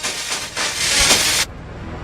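Heavily distorted logo-sound edit audio: a loud hiss that cuts off suddenly about one and a half seconds in, leaving a lower buzzing noise.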